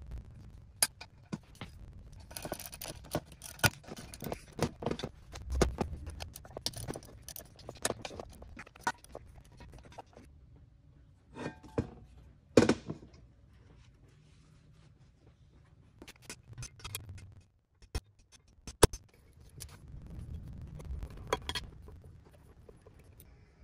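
Metal engine parts of a 1928 Harley-Davidson JH being handled and fitted: a quick run of clinks, scrapes and clatters from the aluminium cases, bolts and small parts, with a few sharp knocks. The sounds thin out into a quieter stretch past the middle.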